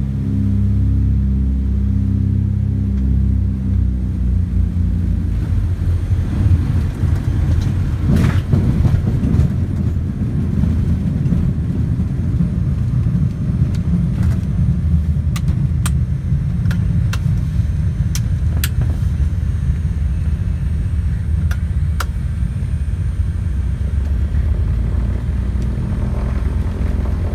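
Inside the cabin of a Britten-Norman BN-2B Islander: the twin piston engines drone steadily on short final, then from about five seconds in a rough, rattling rumble takes over as the wheels roll along the gravel airstrip, with scattered sharp clicks in the middle. Near the end the steady engine drone comes through clearly again as the plane slows on its landing roll.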